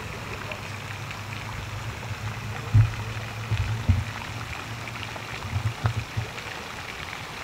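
Wind buffeting the microphone outdoors: a steady hiss with low rumbling thumps, heaviest about three seconds in, again around four seconds, and near six seconds.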